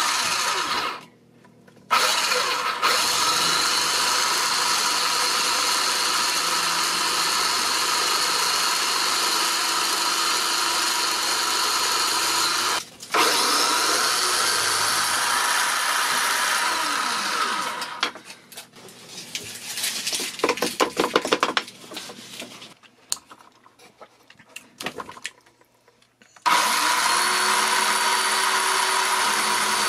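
A homemade drill press's 12 V DC drill motor drilling a wooden strip, running with a steady whine. It stops briefly twice, turns uneven and rattly partway through, goes almost quiet for a few seconds, then runs steadily again near the end.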